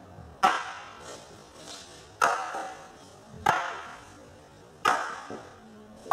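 Long fighting staffs striking each other in a two-person set drill: a sharp knock about every second and a half, five in all, each ringing briefly.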